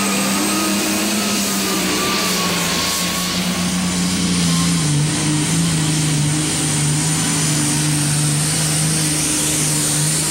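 Turbocharged diesel engine of a Case IH Magnum super stock pulling tractor at full throttle, dragging the weight-transfer sled down the track. The engine note holds steady, then drops in pitch about five seconds in.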